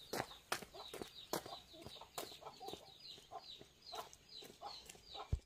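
Chickens clucking, with many short high chirps and irregular sharp clicks among them; the sound cuts off suddenly at the very end.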